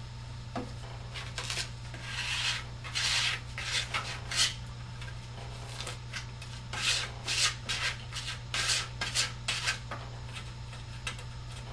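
Brown paper shopping-bag strips being handled and rubbed flat onto glued cardboard by hand: a series of short, irregular dry rustling strokes.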